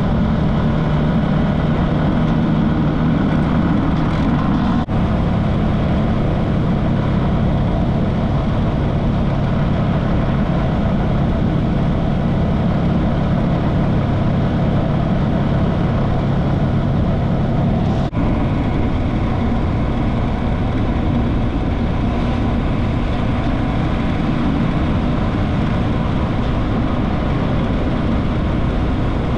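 Motorcycle riding on the road: a steady engine drone under a constant rush of noise, with two brief dips, about five seconds in and about eighteen seconds in.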